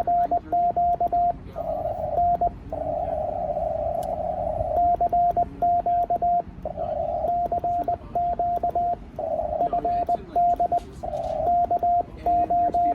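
Morse code (CW) from a ham radio transceiver: a single steady tone keyed rapidly on and off in dots and dashes, with stretches of receiver hiss at the same pitch between the exchanges.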